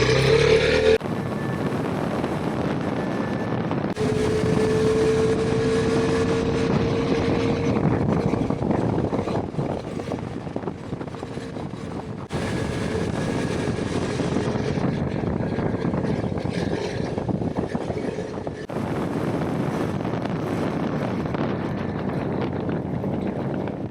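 KTM 390 Adventure's single-cylinder engine running steadily under way, with wind and tyre noise from the dirt road; the sound changes abruptly a few times.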